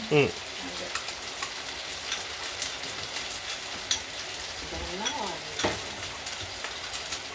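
Chicken sizzling as it stir-fries in a pan, with a steady frying hiss and many scattered sharp crackles and clicks from spattering fat and the stirring utensil.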